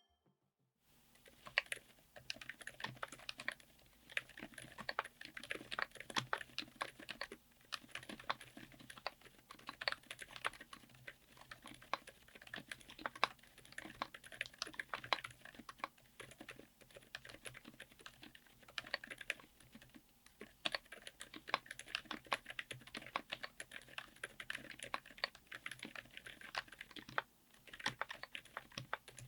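Fast, continuous typing on a mechanical keyboard fitted with Outemu Silent Peach V3 silent linear switches, on an FR4 plate in an aluminium case: a steady stream of muted keystroke clicks with brief pauses. The typing starts about a second in.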